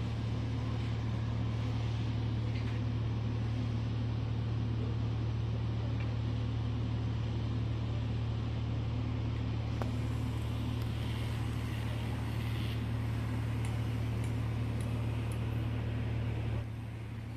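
Steady low drone of a ship's diesel machinery, holding an even pitch, then dropping noticeably in level near the end.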